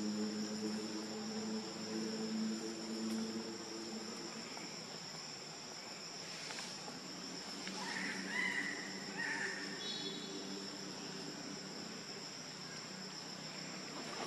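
Steady chorus of forest insects: a continuous high-pitched buzz at two pitches. A low droning hum fades out about four seconds in, and a few short chirps come about eight seconds in.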